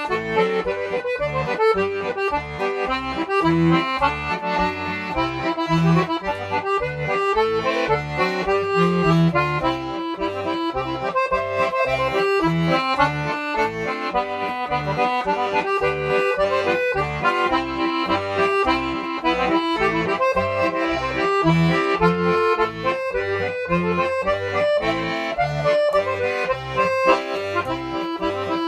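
Piano accordion playing a polka: a melody on the right-hand keyboard over a steady, regular bass-and-chord pulse from the left hand.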